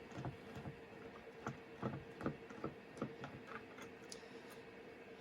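Light, irregular clicks and ticks of a small Torx screwdriver and tiny screws being handled on the metal cover of a Quantum Go-Drive laptop hard drive as the cover is unscrewed.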